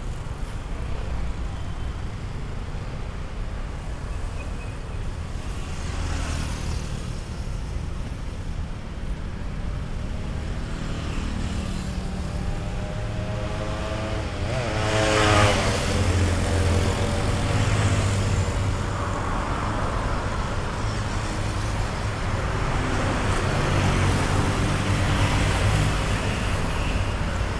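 City road traffic: a steady rumble of cars going by on a multi-lane avenue. About halfway through, one vehicle passes close, its engine note growing louder and then fading as it goes by.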